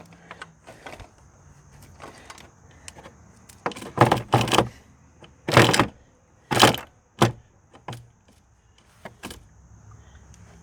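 A rusty ATV drive chain being handled and worked off its sprockets: a few loud metallic clanks and rattles in quick bursts midway, with lighter clicks around them.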